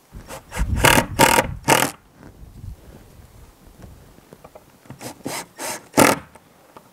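Cordless impact driver driving small screws through a black ornamental hinge into a wooden lid, in two bursts: a longer one starting just after the beginning and a shorter one about five seconds in.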